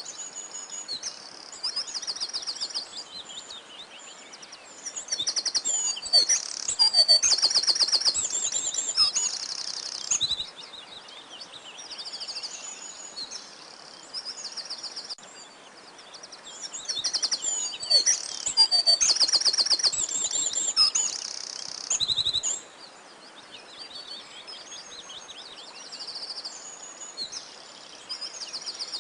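Several songbirds singing, with quick high trills and repeated chirping phrases over a faint steady hiss. The singing grows busier and louder in two stretches, about a fifth of the way in and again past the middle.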